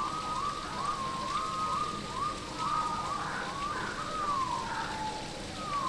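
Steady rain falling through rainforest foliage, with a bird calling over it: a short rising whistle repeated about twice a second, then longer falling whistles in the second half.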